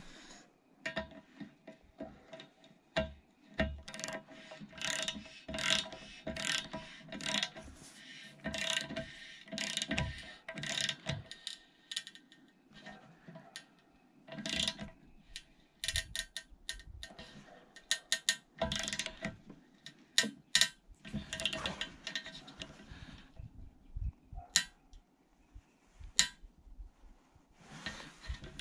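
Irregular metallic clicks, knocks and scrapes as a TPMS sensor and its valve hardware are handled and fitted against an aluminium wheel rim, thinning to a few isolated clicks near the end.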